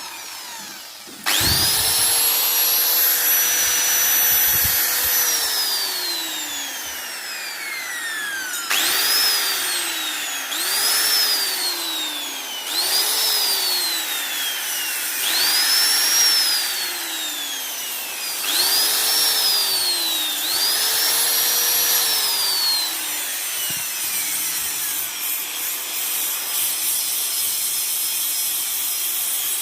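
Electric grinder switched on, winding up to a steady high whine and held for a few seconds, then let go and coasting down. It is then switched on and off in short bursts about every two seconds, each run rising in pitch and falling away again.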